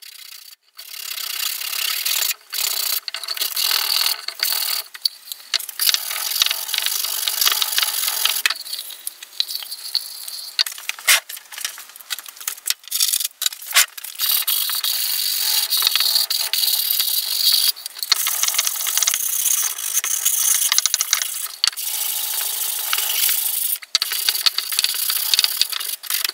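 Sandpaper rubbing back and forth over a wooden box by hand, a finishing sanding with grits up to about 240, in runs of quick strokes broken by short pauses.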